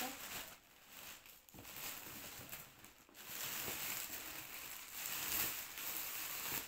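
Rustling and crinkling of new clothes and their packaging being handled and pulled out by hand, louder from about three seconds in.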